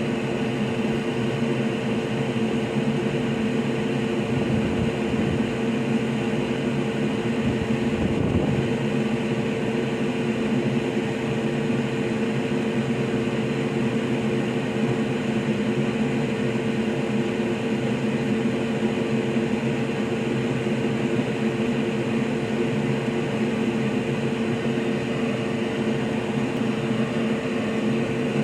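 A steady mechanical hum and whir with a constant pitch, unchanging in level.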